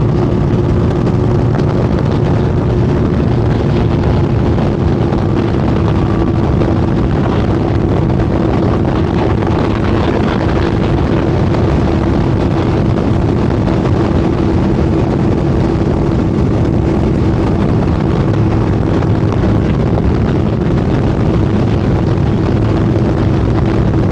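Boat's outboard motor running steadily at speed, a constant drone under heavy wind rush on the microphone.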